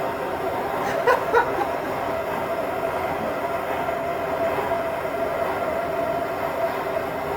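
Handheld gas torch flame running steadily as it heats a stuck cylinder head bolt, with two short clicks about a second in.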